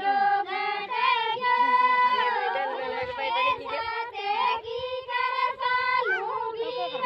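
High voices singing a Marwari wedding song (vivah geet) in long, held, wavering phrases.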